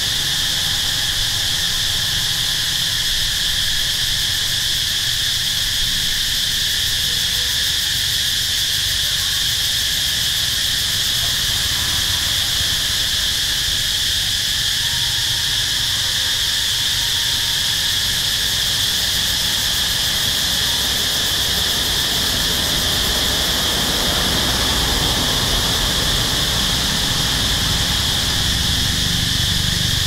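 A chorus of insects in the trees, giving a steady, unbroken high-pitched buzz, over a low background rumble.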